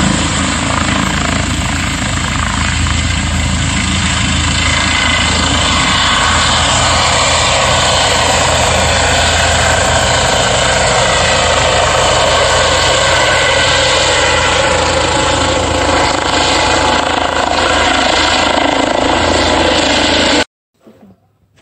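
Yellow rescue helicopter lifting off and climbing away, its rotor and turbine running loud and steady. The sound cuts off suddenly near the end.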